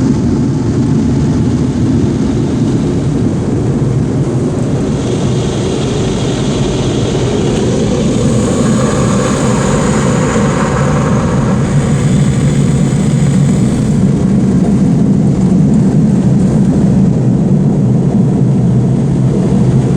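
Automatic car wash dryer blowers running, a steady loud roar of forced air heard from inside the car. For several seconds midway a hissier rush of air rises over the roar, then fades back.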